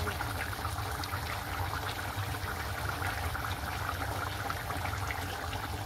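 Chicken curry gravy simmering in a pan, thick sauce bubbling and popping steadily as the chicken is nearly cooked, over a low steady hum.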